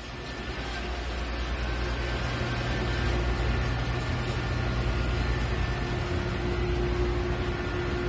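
Commercial dishwasher running: a steady low motor hum with a rushing noise over it, growing a little louder over the first few seconds and then holding.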